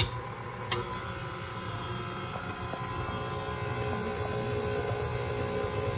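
KitchenAid Classic Plus stand mixer running, its flat beater churning chocolate into buttercream in a steel bowl: a steady motor hum and whine, with one sharp click under a second in.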